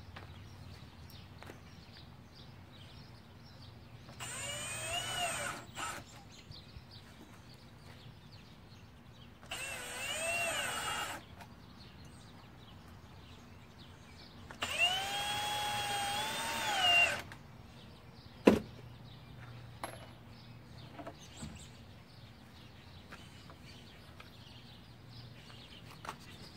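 Cordless drill driving screws into the wooden stair stringers in three runs, the last one the longest, its motor whine rising and then sagging under load each time. A single sharp knock follows.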